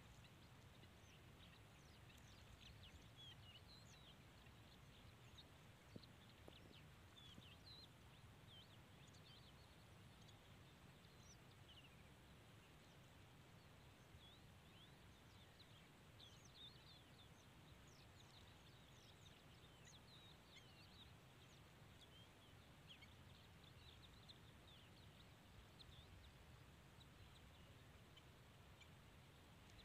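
Near silence with many faint, short, high chirps of small birds calling, over a low steady background hiss.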